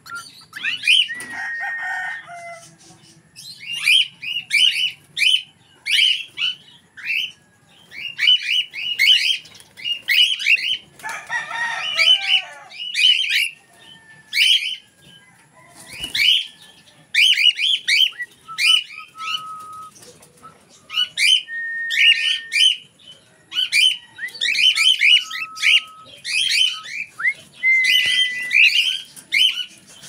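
Cockatiel calling: short bursts of rapid chirps about once a second, with a few brief steady whistled notes and one harsher, lower call near the middle.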